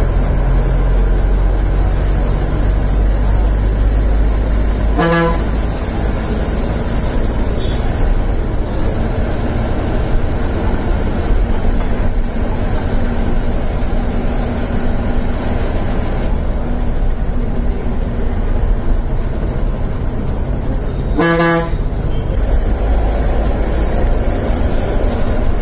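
City bus engine and road noise heard from inside at the front, running steadily while the bus drives, with a horn honking briefly twice, about five seconds in and again about twenty-one seconds in.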